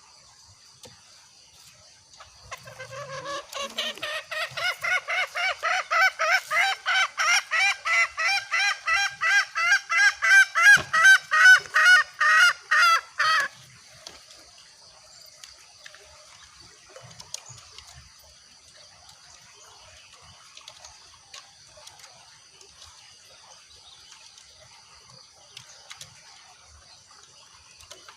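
Green junglefowl hen calling: a rapid run of clucking notes, about three a second, growing louder for about eleven seconds and then stopping abruptly. It is a hen's call that draws males in. After it, only a faint steady high-pitched whine remains.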